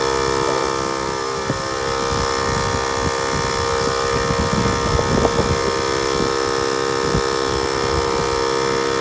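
Portable electric tire inflator running steadily while inflating a car tire, a constant motor buzz, with some irregular low rumbling near the middle.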